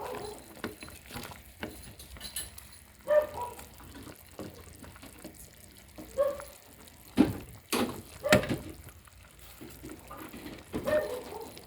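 A metal utensil knocking and scraping against cookware in uneven strokes, each knock giving a short ringing clink, with several sharp knocks close together a little past the middle.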